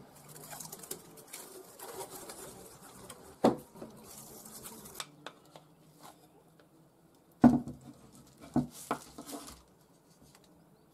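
Paper crinkling as baking paper is handled, with a sharp knock partway through. Then a few loud knocks and scrapes as sticky date-and-oat dough is scraped out of a glass bowl with a wooden spoon onto the paper.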